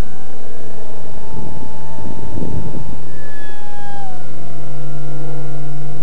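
An RC flying wing's motor and propeller whine in flight, heard loud through the onboard camera. It holds several steady tones whose pitch glides and drops about four seconds in, with a burst of rushing noise about two seconds in.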